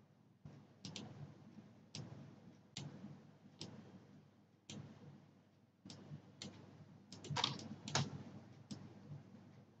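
Computer mouse clicking faintly, each click setting an anchor point of a pen-tool path. Single clicks come about once a second, with a quick cluster about seven to eight seconds in.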